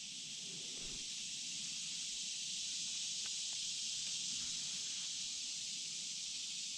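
Steady high-pitched outdoor hiss, with a couple of faint ticks a little after three seconds in.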